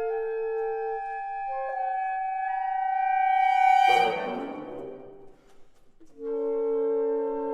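Reed quintet of oboe, clarinet, saxophone, bass clarinet and bassoon playing contemporary classical music. Held notes shift and swell to a loud peak about four seconds in, then break off in a sharp noisy accent that rings away into a moment of near silence. A new sustained chord enters softly about six seconds in.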